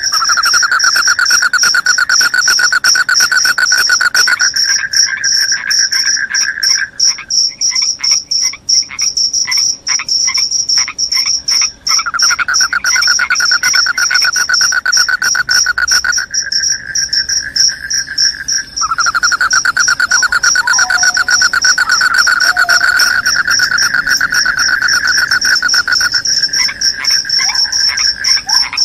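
Crickets singing loud, unbroken trills. A high-pitched trill carries on throughout, while a lower-pitched trill stops and starts, twice falling silent for a few seconds and for a while breaking into separate quick chirps.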